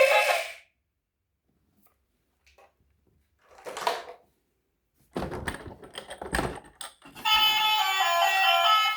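Background music cuts out, followed by a few seconds of quiet broken by a brief swishing noise and a quick run of clicks and knocks, before new music with plucked guitar notes starts near the end.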